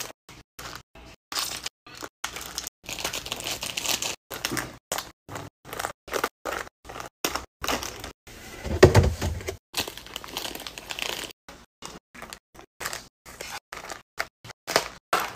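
Plastic snack wrappers crinkling and rustling as wrapped packs are set one after another into a perforated plastic bin, with light taps and clicks of packs against the bin. A heavier thud comes about nine seconds in.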